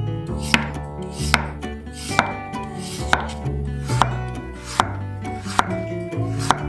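Chef's knife slicing a raw potato into thin rounds on a bamboo cutting board: a crisp cut and tap on the board about every second, eight times, at an even pace.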